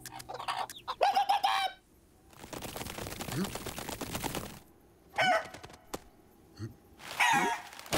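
Cartoon chickens clucking in short bursts. About two seconds in comes a few seconds of rapid pattering as the flock scurries off, and then a couple more clucks.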